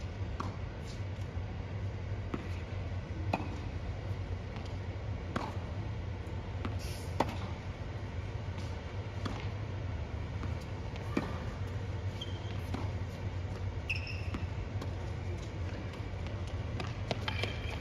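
Tennis rally on a hard court: sharp pops of racket strings striking the ball and of the ball bouncing, coming about once a second at an uneven pace, over a low steady rumble.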